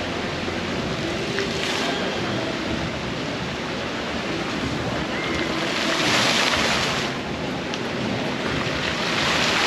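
Fountain jets splashing into a pond, a steady rushing of water that swells louder twice, about six seconds in and again near the end.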